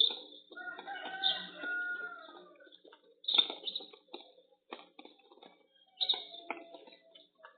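A rooster crowing once, beginning about half a second in and lasting about two seconds, picked up through a security camera's microphone. Short, sharp sounds come and go around it.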